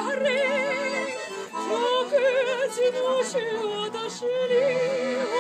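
A woman singing a French chanson in held phrases with a wide vibrato, over steady sustained accordion chords.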